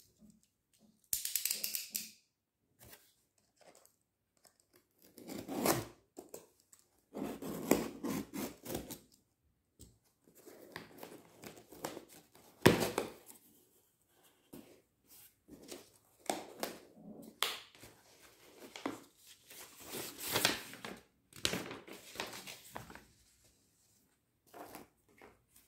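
A cardboard shipping box being opened by hand: scraping, tearing and rustling of cardboard and packing tape in short irregular bursts with pauses, the sharpest crack a little before halfway.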